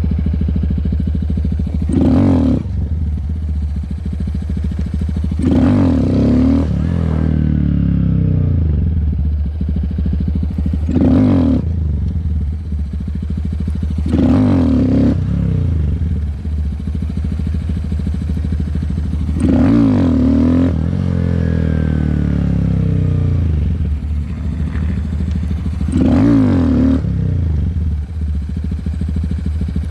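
Honda Grom's 125cc single-cylinder engine revved hard about six times, a few seconds apart, as for clutch-up wheelies, running lower with a sliding pitch in between. The clutch is near the end of its life.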